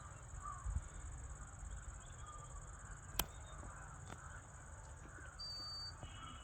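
Faint bird calls, likely crows cawing, over rural outdoor ambience with a steady high-pitched drone. There is one sharp click about three seconds in.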